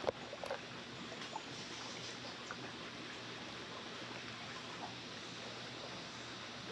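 Faint, steady hiss of running water, with a couple of small clicks in the first half-second.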